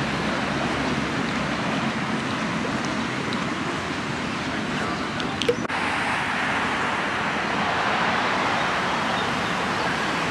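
Steady city street noise with passing road traffic. A sharp click about five and a half seconds in, after which the background hiss is brighter.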